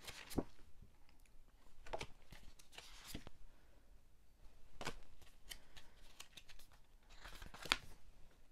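Stiff cardstock art cards handled and flipped through one by one: faint, scattered slides and flicks of card against card, with one sharper snap near the end.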